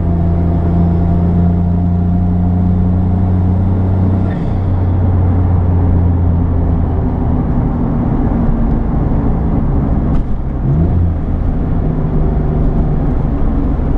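Cabin sound of a 1992 Autozam AZ1's small turbocharged three-cylinder engine at highway speed, with road and tyre noise. The steady engine drone drops about four seconds in and turns uneven, with a short rising rev about ten seconds in.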